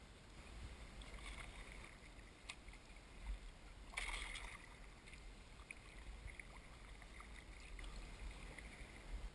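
Kayak paddling: paddle blades dipping, water splashing and dripping, with a louder splash about four seconds in, over a low rumble.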